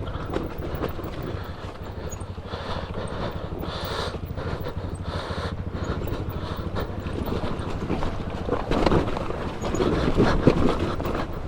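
Two-stroke KTM 300 EXC dirt bike engine running steadily, its pulses dense and low.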